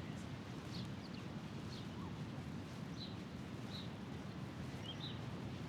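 Small birds chirping, short high notes about once a second, over a steady low background rumble of outdoor ambience.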